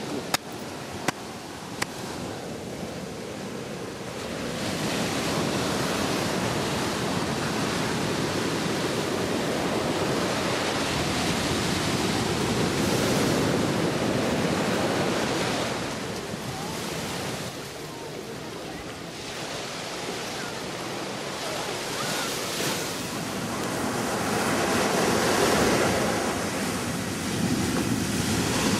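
Ocean surf washing onto a sand beach: a steady rushing that swells and ebbs over several seconds. A few sharp clicks come in the first two seconds.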